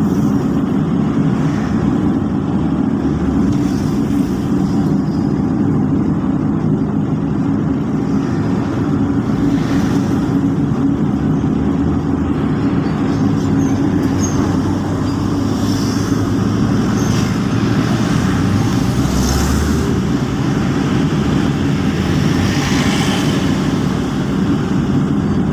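Steady motor-vehicle engine and road noise, running continuously at an even level with a low hum.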